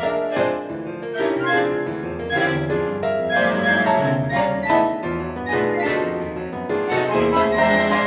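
Sampled chamber quintet of piccolo, clarinet, viola, cello and piano playing loud, accented, syncopated chords in an uneven 7/8 meter, with the piano prominent.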